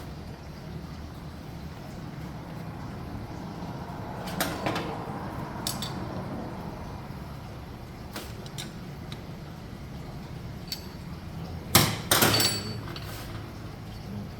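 Metal engine parts and tools being handled, with scattered clicks and knocks and two louder clacks about twelve seconds in, over a steady low hum.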